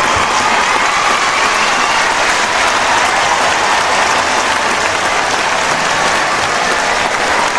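Crowd applauding and cheering: dense, steady clapping with voices calling out through it.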